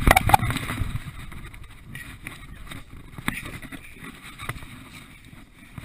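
A runner's body, shoes and gloves hitting and climbing a steep wooden obstacle wall: a loud thump and a cluster of knocks at the start, then scuffing with occasional single knocks while climbing.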